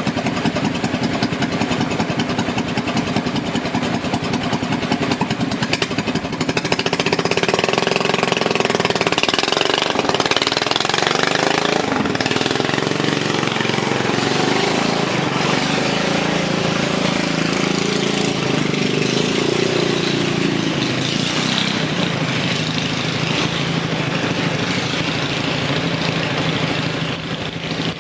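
Racing lawn mower's small engine running with a rough, rapid beat; through the middle stretch its speed rises and falls and it gets a little louder, then it settles back to a steady run.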